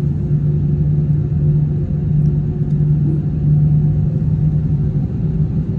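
Airliner cabin noise from the jet engines while the plane is on the ground: a steady low drone with a constant pitch over a low rumble.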